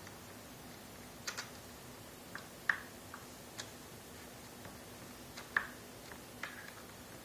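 Irregular small clicks and taps of a screwdriver, tiny screws and metal mounting brackets being handled as the brackets are screwed onto a replacement laptop LCD panel. About a dozen clicks, unevenly spaced, the sharpest about a third of the way in and about three-quarters through.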